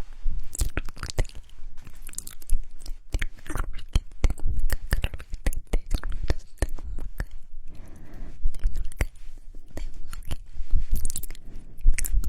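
Close-miked ASMR mouth sounds: wet clicks and smacks of lips and tongue, coming thick and irregular, several a second.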